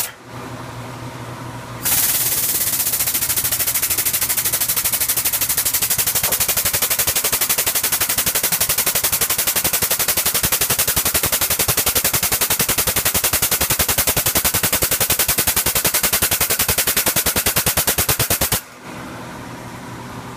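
Air/hydraulic 20-ton bottle jack's air-driven pump running, a loud, rapid, even chattering with a strong hiss, as it drives the ram of a homemade press brake down to bend 3/8 by 3-inch steel flat bar to 90 degrees. It starts about two seconds in and cuts off sharply near the end.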